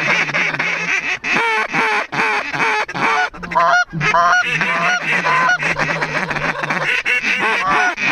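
A large mixed flock of wild geese, snow geese and white-fronted geese (specks), calling continuously overhead: many overlapping honks and yelps with no let-up.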